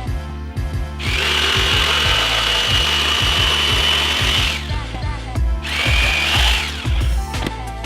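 Electric power tool cutting wood, in two runs: one of about three and a half seconds starting a second in, then a shorter one near the end of which the motor whine winds down. Background music with a steady beat plays underneath.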